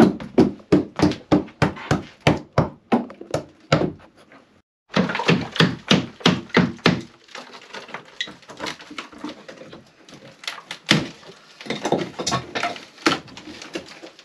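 Hammer blows on timber, a fast run of about three or four strikes a second. After a short pause near the four-second mark they start again, then go on lighter and less regular.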